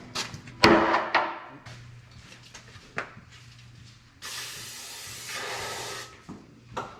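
Metal parts and tools knocking and clanking, the loudest a ringing clank about a second in, then a steady spraying hiss lasting about two seconds, during wheel-end work on a truck axle.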